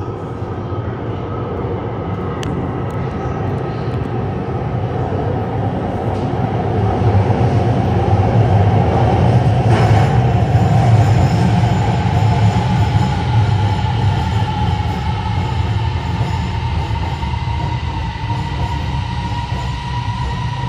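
Beijing Subway Line 7 train pulling into a station out of the tunnel. Its rumble builds as it arrives, is loudest as the cars pass, and eases as the train slows, with a whine that rises slowly in pitch.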